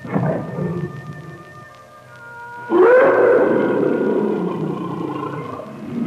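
Horror sound effects from a 1980s Halloween cassette: a sudden low sound at the start and sustained droning tones, then, near the middle, a loud, drawn-out, animal-like cry that rises in pitch and then holds.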